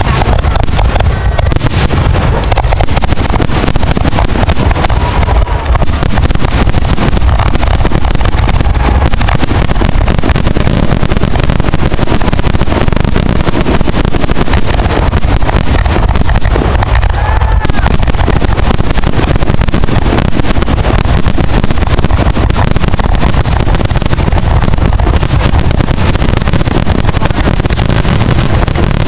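Fireworks grand finale: a loud, near-constant barrage of shell bursts and crackle running together into one unbroken rumble.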